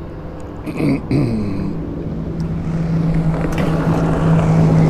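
Outboard motor of a passing fishing boat running with a steady low hum that grows louder as the boat approaches.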